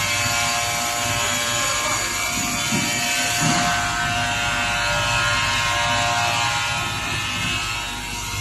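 Multi-blade log saw running steadily: a level machine whine of several held tones over a constant hum.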